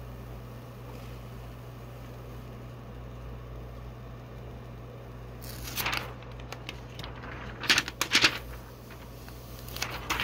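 Steady low electrical hum, broken by short, loud bursts of crinkling plastic about six seconds in, twice around eight seconds and again near the end, as the tablet's clear protective film is peeled off and handled.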